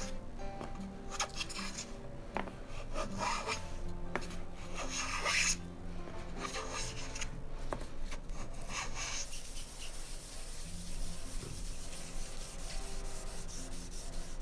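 A wooden smoothing plane hisses as it takes several shavings along a softwood board, cutting cleanly with little chatter. The passes stop about nine seconds in, followed by a softer rubbing as a hand brushes over the planed surface.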